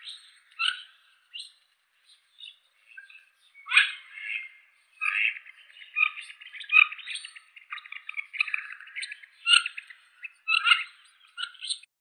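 Wood ducks calling: a series of short, high, squeaky calls, few at first and then coming thick and fast from about four seconds in.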